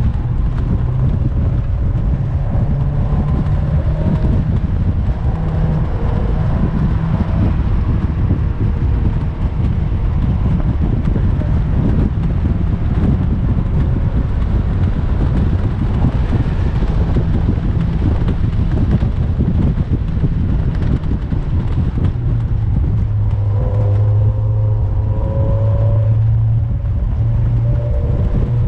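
Engine of a Mazda MX-5 NC with a 2.5-litre engine swap, heard from inside the open-top cabin while lapping a circuit. Its pitch rises and falls with the revs, strongest in a climb near the end, over steady wind buffeting and road noise.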